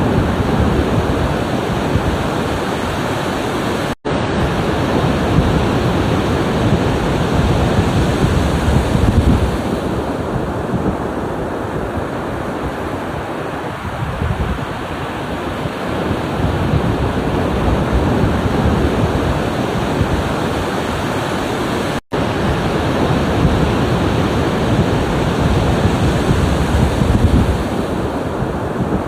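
Ocean surf, waves breaking and washing in as a continuous rush that slowly swells and eases. The sound cuts out for an instant twice, once about four seconds in and again past the twenty-second mark.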